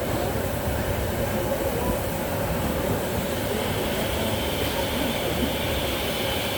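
Railway train at the platform, a steady low rumble with a continuous hum; a higher hiss comes in about halfway through.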